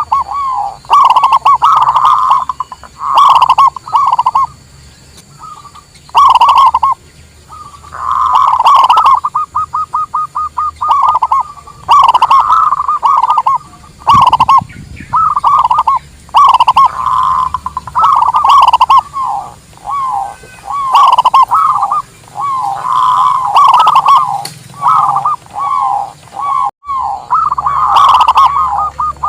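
Zebra dove (perkutut) cooing loudly in repeated phrases of quick, staccato coos. About nine seconds in comes a rapid run of evenly spaced notes.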